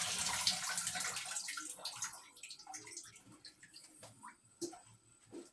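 Water pouring and splashing off soaked collard greens as they are drained in the sink, tapering off after about two seconds to scattered drips.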